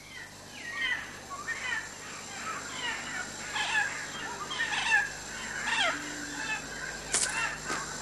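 Several birds calling over and over in the wild, short, mostly falling calls overlapping one another, with a few brief high, hissy sounds near the end.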